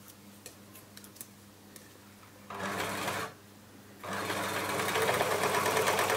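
Elna L4 four-thread overlocker running as it stitches over a seam in two layers of sweatshirt fabric. A short burst comes about two and a half seconds in, then a longer, steady run starts about a second later. Before the first burst there are faint clicks of the fabric being handled.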